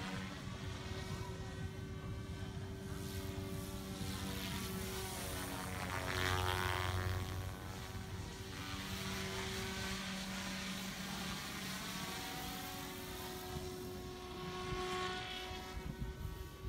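Radio-controlled model helicopter flying overhead, its rotor and motor making a steady pitched drone with a high whine. The drone grows louder and the pitch pattern sweeps as it passes closest about six to seven seconds in, then settles again.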